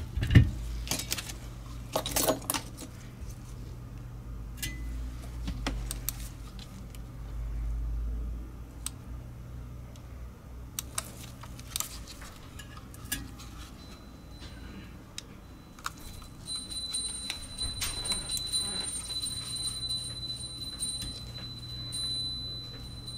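Scattered light clicks, taps and small metallic clinks of a computer mouse being handled while new mouse feet are pressed on with tweezers over a stainless-steel plate, over a steady low hum. A faint high-pitched whine comes in about two-thirds of the way through.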